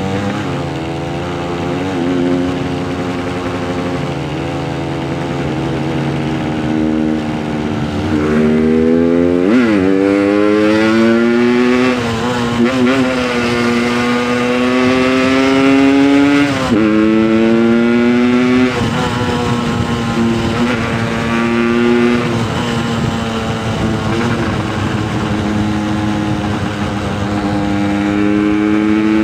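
Yamaha RX King's 135 cc single-cylinder two-stroke engine running while the motorcycle is ridden. The pitch climbs under acceleration and drops sharply at gear changes, about ten seconds in and again near the middle, then climbs steadily near the end.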